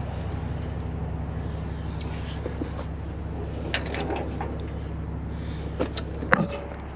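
Heavy diesel truck engine idling steadily, with a few sharp metallic knocks and clanks from hands working at the truck's rear; the loudest knock comes about six seconds in.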